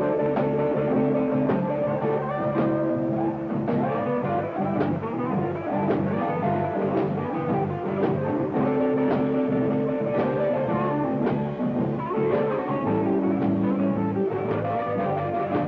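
Live electric blues band playing an instrumental groove, with electric guitar over a steady drum beat.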